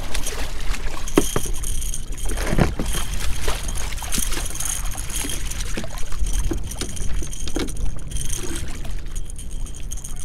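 Hooked catfish thrashing and splashing at the surface beside a kayak, in irregular bursts, the biggest splash about two and a half seconds in. Wind buffets the microphone with a steady low rumble, and choppy water laps around the kayak.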